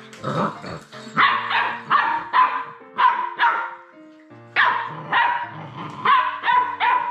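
Labrador retriever puppy barking repeatedly in short, sharp barks. The barks come in two runs with a short pause in the middle, and the second run is quicker.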